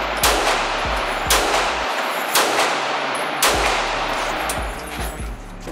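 Four handgun shots about a second apart, each followed by a long echo off the concrete walls of an indoor range.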